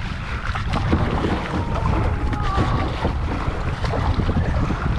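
Wind buffeting the microphone on a kayak's bow, with water splashing and lapping against the hull as the kayak moves through choppy water.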